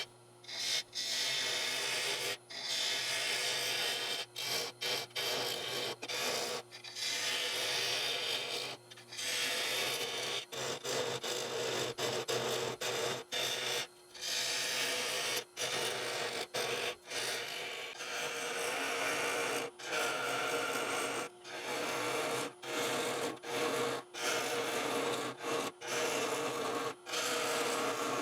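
A turning tool cutting the inside of a spinning petrified oak bowl on a wood lathe: a steady rasping hiss broken by many short gaps as the tool comes off the wood.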